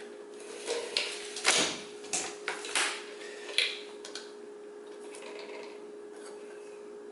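Hard plastic vacuum parts and base being handled: a run of short clicks and knocks in the first four seconds, the loudest about one and a half seconds in, over a steady hum.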